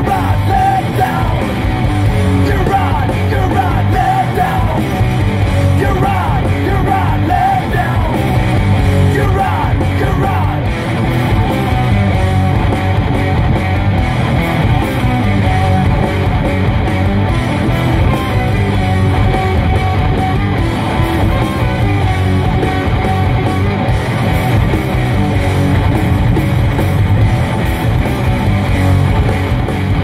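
Loud rock song from a CD: sung and yelled vocals over electric guitar, the vocals mostly in the first ten seconds or so.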